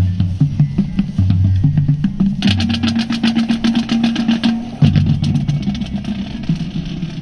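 Marching band percussion playing: low drum notes stepping in pitch, with a fast run of snare-drum strokes about two and a half seconds in that lasts about two seconds.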